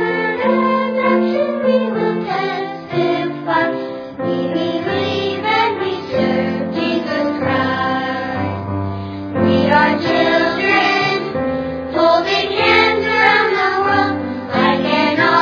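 Background music: a song with singing voices.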